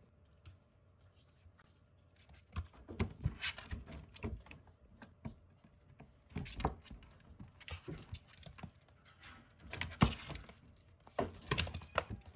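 Kittens' paws pattering and thumping as they scamper and pounce on a cage floor, in irregular clusters of taps and knocks, the loudest about ten seconds in and again near the end.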